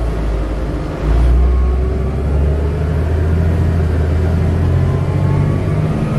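Denning Phoenix low-floor bus's engine and driveline heard from inside the cabin as the bus pulls away: a deep rumble that grows louder about a second in, with a whine rising steadily in pitch as it gathers speed and dropping back near the end.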